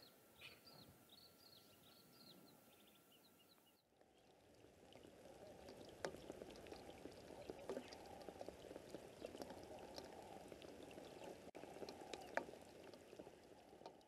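African grey hornbill giving a faint run of short, high piping whistles for about four seconds, followed by a faint crackling, pattering hiss for the rest.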